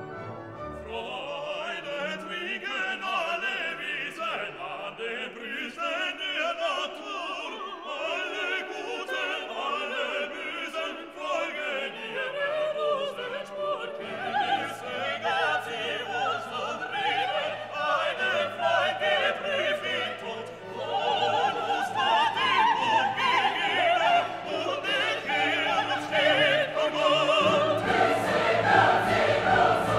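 Orchestral background music with operatic singing, growing fuller and louder with a deeper bass in the last few seconds.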